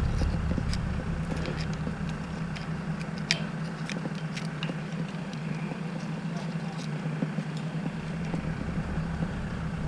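A crane's diesel engine idling steadily, with scattered light clicks and scrapes as a hand tool knocks caked dirt off a jib lattice pin connection.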